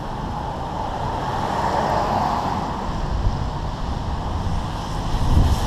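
Steady outdoor road-traffic noise with wind rumbling on the microphone, growing louder near the end.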